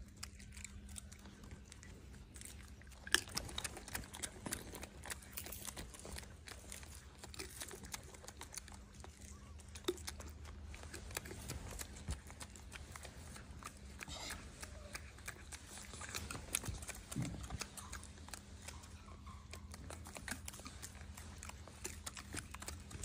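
Faint scattered clicks and rustles over a steady low hum, with one sharper click about three seconds in.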